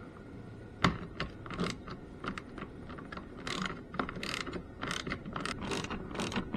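Hand tool driving screws into the underside of a car bumper to fix a lip spoiler: one sharp click about a second in, then, from about halfway, a run of short ratcheting strokes, two or three a second.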